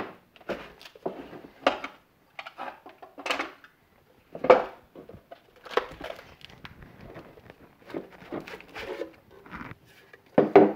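Hard plastic battery case knocking and scraping as a LiFePO4 cell pack is slid out of it by hand: irregular clicks, knocks and rustles, the loudest about four and a half seconds in.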